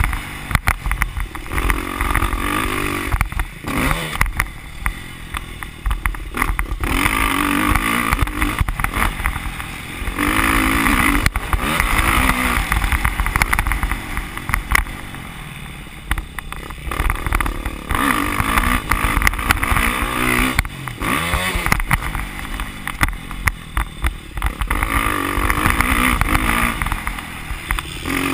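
Motocross dirt bike engine heard from on board while riding a track, revving up hard and falling off again in repeated surges every few seconds as the throttle is opened and closed.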